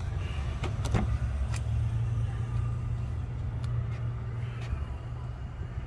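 A car's rear door being opened: a few sharp clicks from the handle and latch in the first second and a half, over a steady low rumble.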